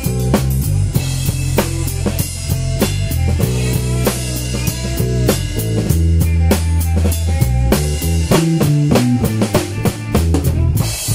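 Acoustic drum kit played with sticks: a steady groove of bass drum, snare and cymbal hits, several strikes a second, over accompanying music with a bass line.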